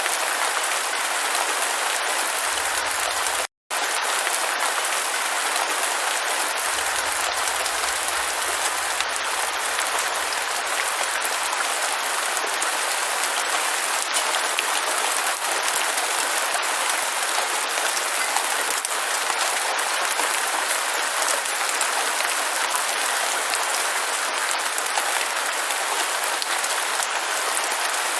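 Steady heavy rain: a dense, even hiss flecked with small drop clicks. The sound cuts out completely for a split second about three and a half seconds in.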